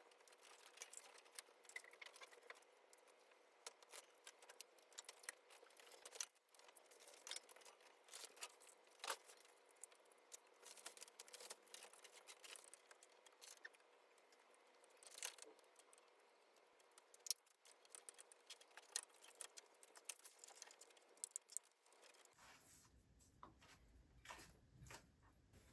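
Faint crinkling, tearing and peeling of bicycle handlebar tape being worked by hand, made up of many small irregular clicks and crackles. The background changes abruptly near the end.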